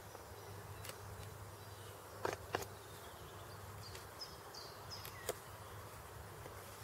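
A hand-held stone flake scraping and cutting the end of a wooden stick being shaped into a handle: faint rasping with a few sharp clicks of stone on wood. The loudest clicks are a close pair a little over two seconds in and one about five seconds in.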